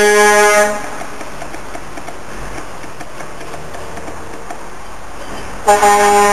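A truck air horn sounding a steady blast that cuts off under a second in, then the running of diesel truck engines rolling past, until an air horn blasts again near the end.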